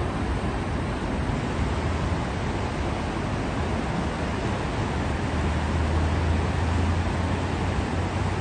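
Steady rushing of the fast-flowing, rain-swollen Los Angeles River, mixed with a low rumble of freeway traffic that grows a little louder past halfway.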